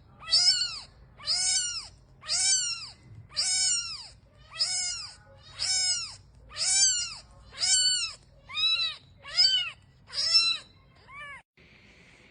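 Kitten meowing over and over, about thirteen short high calls in a steady rhythm, each rising then falling in pitch; the last call is fainter and the calls stop about a second before the end.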